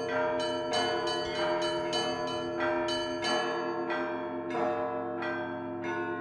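Church bells rung in a quick, even rhythm, about two to three strikes a second, with several bells of different pitch ringing on over one another.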